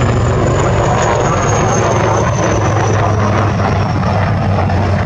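HAL Light Combat Helicopter with twin Shakti turboshaft engines flying past: steady rotor and engine noise, with a high turbine whine that falls slowly in pitch.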